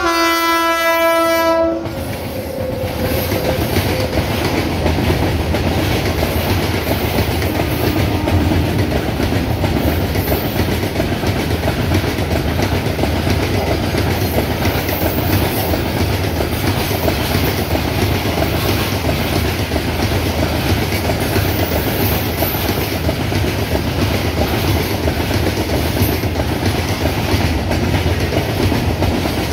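WAG-9H electric locomotive's horn sounding until about two seconds in, then a long freight train of covered wagons passing close by, with a steady rumble and clatter of wagon wheels on the track.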